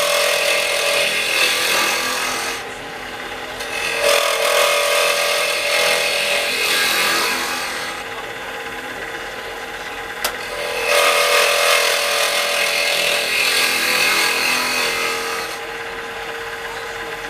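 Wood lathe running with a steady hum, while a turning tool is pressed against the spinning burl three times, each pass several seconds of loud scraping noise; a single sharp click comes about ten seconds in.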